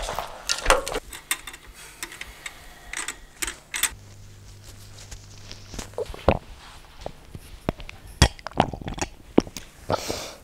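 A scattered string of knocks, clicks and rustles from handling a corded microphone and setting it into its stand, with footsteps on a wooden stage floor and a drinking glass being picked up.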